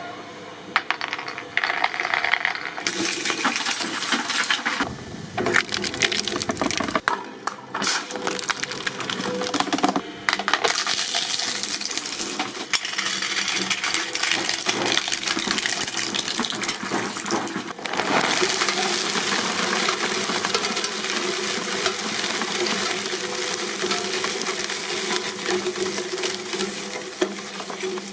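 Industrial shredding machine crunching through hard material, with dense metallic clinking and rattling. The sound changes abruptly several times.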